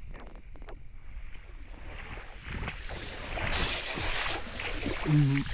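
Water splashing and sloshing around a person moving through a pool, louder in the second half, over a low wind rumble on the microphone, with a short grunt near the end.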